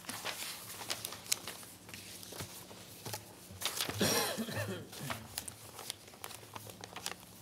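Sheets of paper rustling and being handled on a desk, with scattered light taps and clicks. A brief faint voice is heard about four seconds in.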